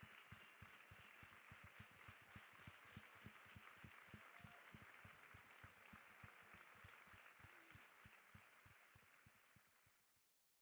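Faint applause from a theatre audience, with a steady fast pulse of low thumps about five a second underneath. It fades out near the end.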